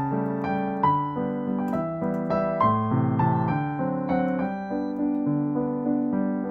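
Background piano music, a gentle melody of struck notes over a few sustained lower chords.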